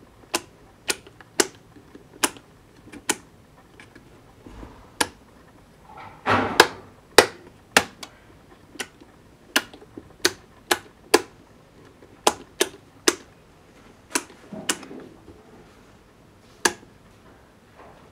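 Toggle switches on a boat switch panel being flipped one after another, with the 12 V relay module clicking as its channels switch the valves: about twenty sharp, irregularly spaced clicks. A brief rustle of handling about six seconds in.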